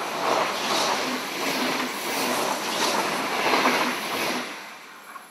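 Passenger train passing close by at speed: a loud, steady rush of wheels on rails that dies away near the end.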